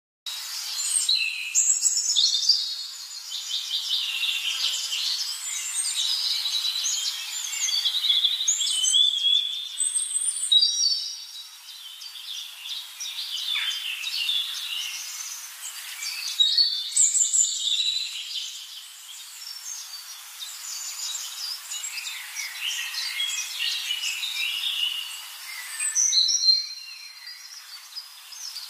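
Many small birds chirping and twittering in a dense chorus of quick overlapping calls, with a couple of brief lulls.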